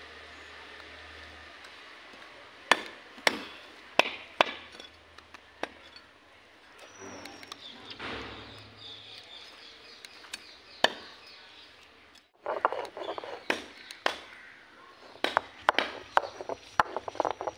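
Heavy kitchen knife chopping on a wooden block, single sharp chops a second or more apart. About twelve seconds in it gives way to a stone roller grinding turmeric on a flat grinding stone (sil-batta), a rapid run of knocking and scraping.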